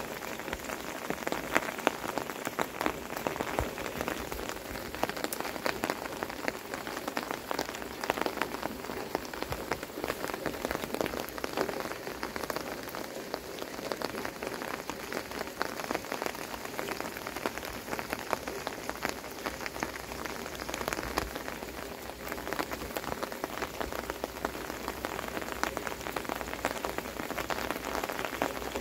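Heavy pouring rain, a steady wash with dense close drop hits, the rain drumming on the umbrella held over the microphone and on a wooden deck.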